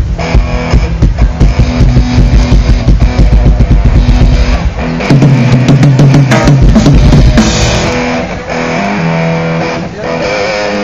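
Rock band playing through the stage PA during a soundcheck: drum kit beating about four times a second under electric guitar, then about halfway through the drums give way to held guitar and bass chords that ease off near the end.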